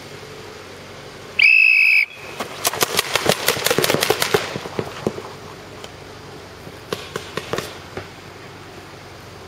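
A short, loud whistle blast starts the paintball game. About a second later comes a rapid string of paintball marker shots, and a few scattered shots follow near the end.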